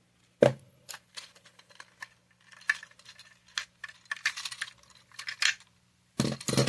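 Hard plastic Lego parts clicking and knocking as a Power Functions cable plug is pulled off and the train's bricks and battery box are handled: an irregular string of small clicks, the loudest about half a second in.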